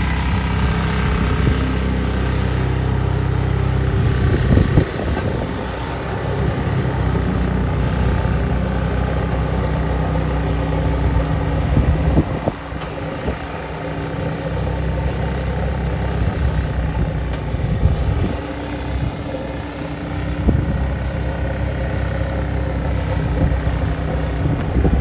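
An engine running steadily, its low note shifting or dipping briefly a few times.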